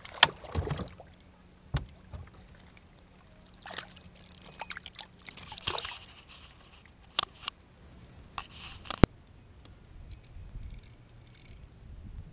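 Water sloshing and splashing against a plastic kayak, with a few sharp knocks now and then.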